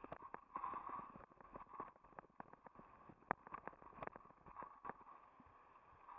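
Mountain bike rolling down a rough dirt trail: irregular sharp clicks and knocks of the bike rattling over bumps, over a steady hiss of tyres on loose dirt.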